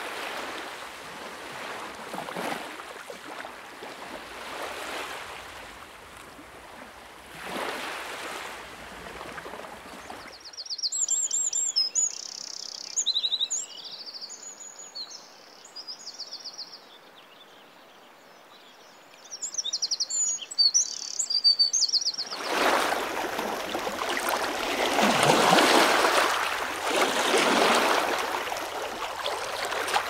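Waves washing in with slow swells, then from about ten seconds in small songbirds chirping and trilling over a quiet background, then from about two-thirds through louder sea waves rolling in.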